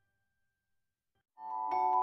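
Near silence, then background music begins about a second and a half in, with a few struck notes that ring on.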